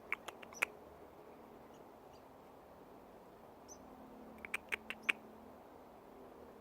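Baby squirrel calling: a quick run of short, sharp squeaky chirps right at the start, then another run of four or five about four and a half seconds in.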